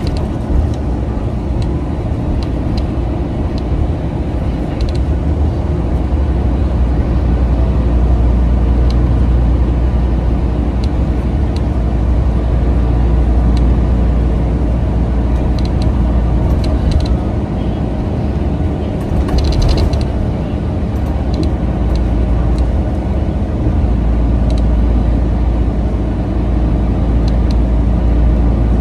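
Cabin sound of a 2011 New Flyer C40LF CNG city bus under way: its natural-gas engine and road noise make a steady, loud low rumble, with a few short clicks scattered through.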